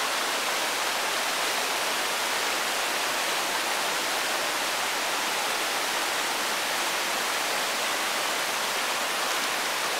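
Small cascade of a rocky stream pouring over boulders into a pool: a steady, unbroken rush of water.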